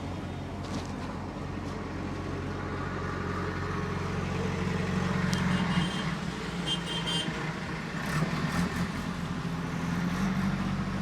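Roadside traffic: a motor vehicle's engine runs close by and grows louder toward the middle, with a few short high-pitched beeps a little past halfway.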